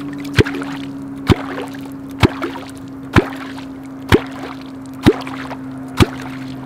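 Catfish clonking: a Black Cat Carbon Klonk wallerholz (long version) driven into the river surface seven times at an even pace, a little under once a second, each stroke a sharp plop with a brief upward sweep in pitch. The clonking is meant to draw wels catfish to the worm bait. A steady low hum runs underneath.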